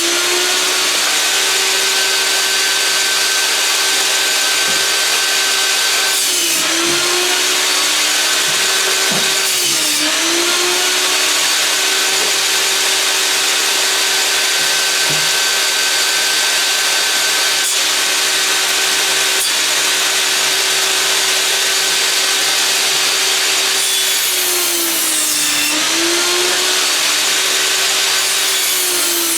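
Einhell table saw running with a steady whine that sags in pitch several times as the blade cuts through boards and the motor slows under load. The pitch climbs back to full speed after each cut.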